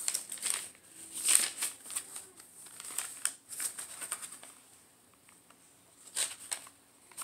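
Paper rustling and crinkling as a handmade journal's pages of mixed papers are turned and handled, in several short bursts with a quiet stretch a little past the middle.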